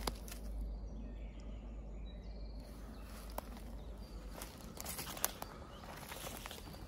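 Footsteps through dry leaf litter on a forest floor: irregular crackles and sharp snaps underfoot, over a steady low rumble.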